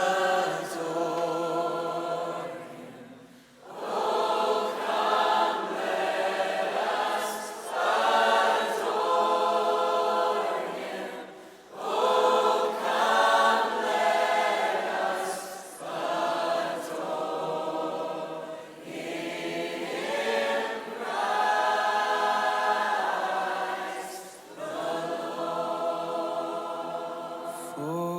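A choir singing slow, sustained harmonised phrases a few seconds long, with short breaks between phrases.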